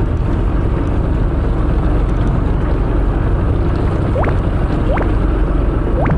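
Steady low rumble of a fishing boat's engine mixed with wind on the microphone. Three short rising chirps come near the end, about four, five and six seconds in.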